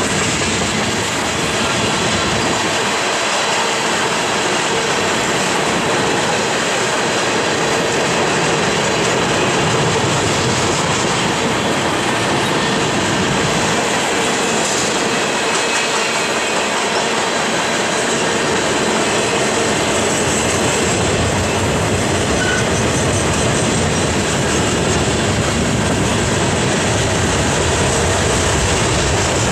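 Freight cars of a mixed manifest train, tank cars and covered hoppers, rolling steadily past on steel wheels: a loud, even rolling noise of wheels on rail that holds at the same level throughout.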